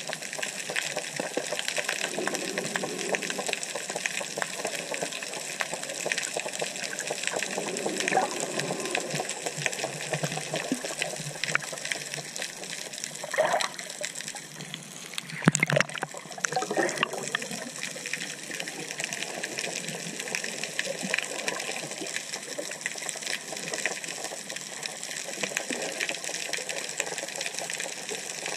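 Underwater ambience picked up by an action camera in its housing: a steady rushing hiss scattered with many faint clicks, and a louder sudden burst about halfway through.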